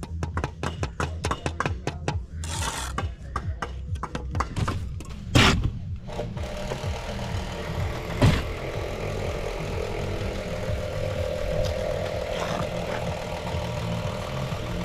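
Rapid light taps of a trowel handle on a brick as it is tapped down to the level, then two sharper knocks and the trowel scraping lime mortar off the joints, over a steady low rumble.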